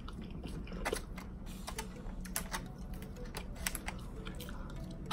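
Irregular small clicks and taps of eating: a plastic fork scooping food from a foam takeout container, mixed with chewing.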